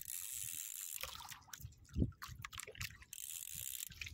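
Sea water lapping and splashing against the hull of a small outrigger boat, in hissing spells, with one short dull thump about two seconds in.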